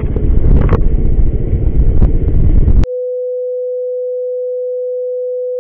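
A loud low rumble of outdoor noise cuts off abruptly about three seconds in. It is replaced by a steady electronic tone at a single pitch, like a dial tone.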